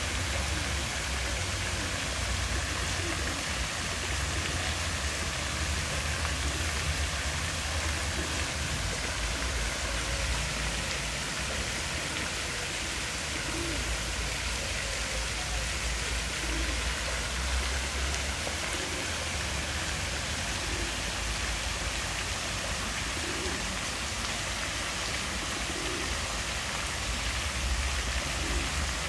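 Park fountain's many jets spraying and splashing into a pool: a steady water hiss, with a low rumble underneath.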